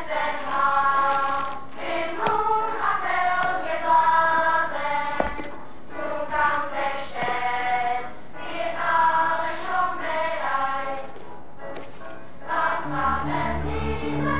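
Choir singing a slow melody in phrases of a few seconds, with short pauses between them. Near the end a low, steady sustained note comes in underneath the voices.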